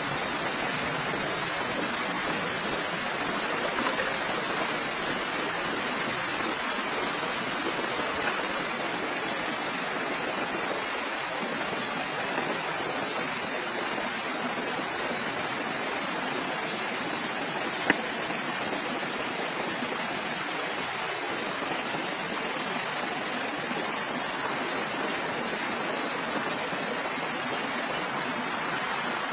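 Steady rushing water noise, with a steady high-pitched buzz over it. About two-thirds of the way through, a second, higher pulsing buzz joins for about six seconds, just after a single sharp click.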